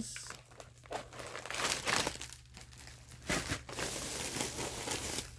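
Crinkly plastic packaging rustling in several short, irregular bursts as snack packs are handled.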